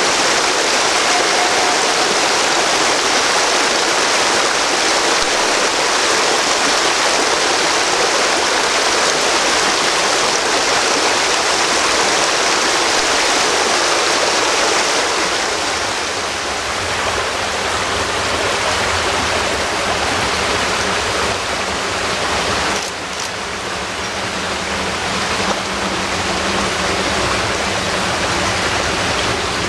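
Steady rushing of a nearby stream. In the second half the low rumble of a narrow-gauge train rolling past comes in under it.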